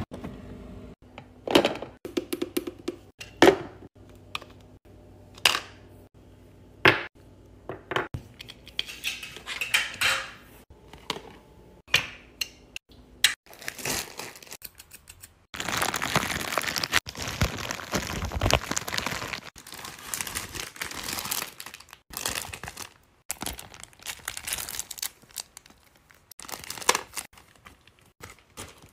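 Close-miked packaging-handling sounds: first a run of separate knocks and rustles of boxed frozen food in a freezer drawer, then plastic crinkling and tearing as a plastic mailer bag is torn open, with a long stretch of dense tearing and crinkling about halfway through and more crinkling of plastic wrap and paper bag after it.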